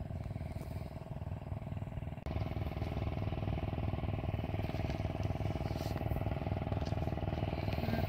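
An engine running steadily nearby, with a rapid even pulse and a constant hum. It gets louder abruptly about two seconds in.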